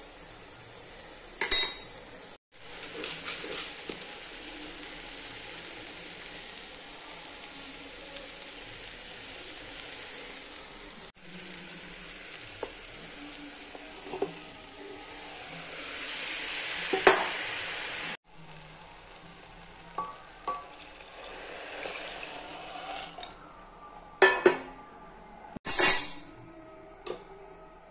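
Vegetables and spices sizzling in a pressure cooker while a metal spoon stirs them, with sharp clinks of the spoon against the pot. The sizzle stops about two-thirds of the way through, and a few more clinks and scrapes follow.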